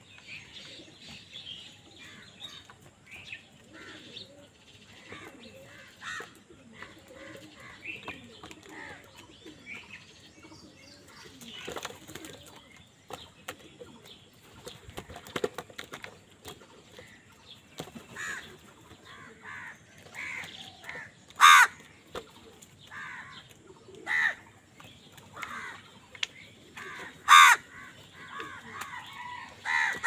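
A flock of house crows squabbling over food: softer calls and chatter at first, then three loud, harsh caws in the last third, with wingbeats as the birds flutter and jostle.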